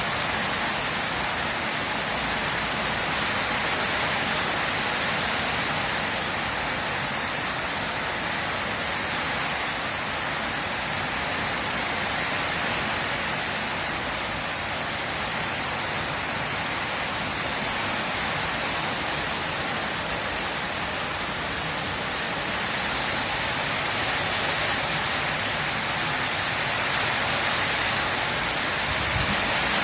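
Heavy tropical rainstorm: a steady, dense hiss of downpour.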